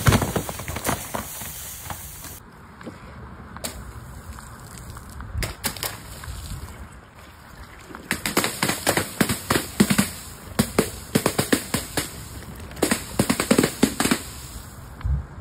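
The spray of burst soda bottles fades out, then, about halfway through, a rapid run of sharp pops follows, several a second, as paint-filled balloons roll onto a bed of nails and burst one after another.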